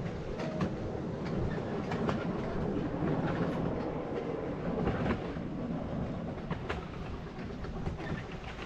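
Miniature railway carriages running along 7¼-inch-gauge track: a steady rumble of the wheels on the rails, with irregular sharp clicks.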